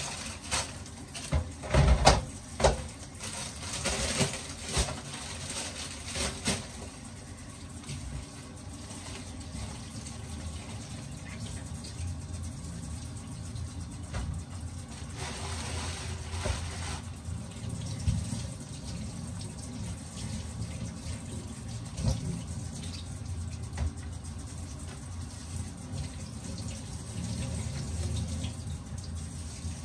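Kitchen tap running steadily into a stainless-steel sink, with plastic bags and packaging rustling. A run of sharp knocks and clatters in the first several seconds, the loudest about two seconds in, as packages are set down on metal trays.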